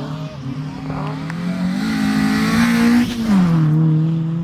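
Historic rally car engine revving up hard along the stage road, its note climbing, then dropping sharply about three seconds in and running on at a steady lower pitch.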